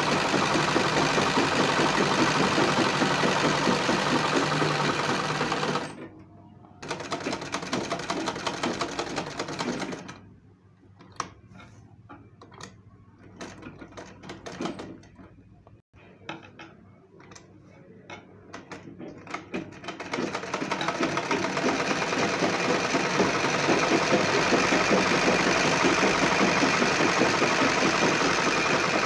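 Sewing machine stitching cloth in runs. It stops briefly about six seconds in, then again for about ten seconds in the middle, where only scattered light clicks are heard, and starts up again for the last third.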